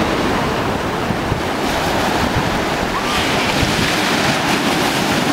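Ocean surf breaking and washing through the shallows, a steady rush of foaming water, with wind rumbling on the microphone.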